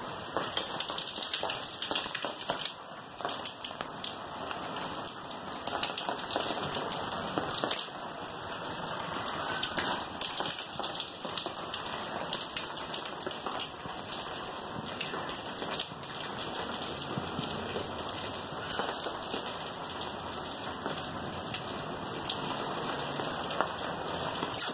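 Steady rain falling on hard surfaces: an even hiss of many small drop patters that keeps on without a break.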